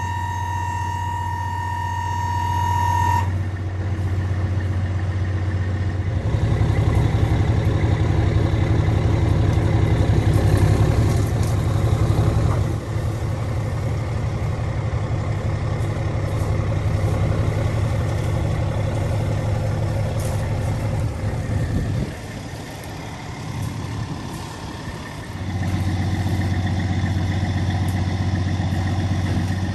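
Semi truck's diesel engine running under load, growing louder about six seconds in, easing a little around twelve seconds, dropping lower for a few seconds after twenty-two seconds and picking up again near the end. A steady high electronic tone sounds over the engine for the first three seconds.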